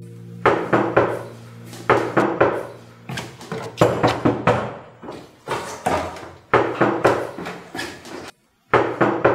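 Hard knocking on a door, blows in quick clusters of two to four, repeated about once a second and ringing briefly after each.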